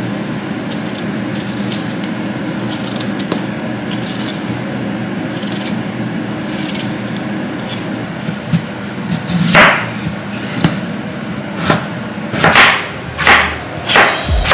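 Swivel vegetable peeler scraping along raw potatoes in short strokes, about one a second, with louder strokes in the last few seconds. Soft background music plays underneath.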